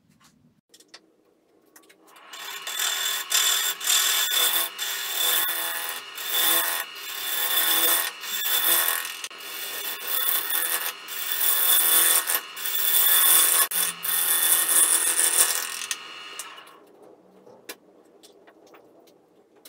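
Bowl gouge cutting a spinning bark-edged log blank of Itín wood on a wood lathe: a loud scraping, hissing cut that swells and eases in repeated passes from about two seconds in, and stops around sixteen seconds. After that it is quiet, with a few light clicks from the tool rest being adjusted.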